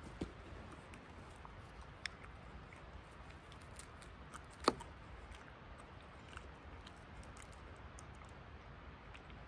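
Knife blade scraping along a stick, shaving off fine fibrous wood, heard as faint scraping with scattered small clicks and one sharper click about halfway through.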